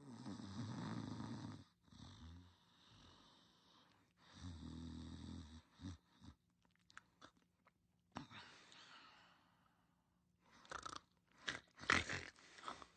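Someone snoring in sleep: a series of snores, low rumbling ones in the first half, then airier breaths and a few short, sharp bursts near the end.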